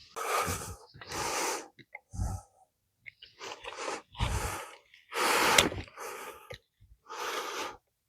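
A man breathing hard in about eight heavy breaths, each lasting around half a second, as he strains with pliers at a stuck pin.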